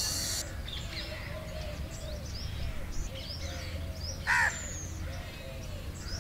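A crow caws once, short and loud, a little past four seconds in, over a background of small birds chirping.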